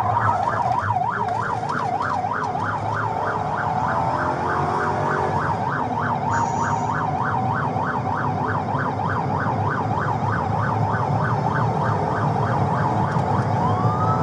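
Police car's electronic siren on the fast yelp, sweeping up and down about three times a second, heard from inside the pursuing patrol car's cabin over engine and road noise. Near the end it switches to a slow rising wail.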